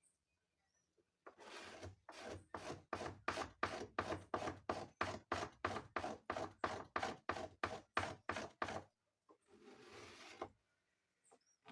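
Knife blade scraped along the edge of a wooden door to shave it down like a plane: a rapid run of scraping strokes, about three a second, followed by one softer, longer scrape near the end.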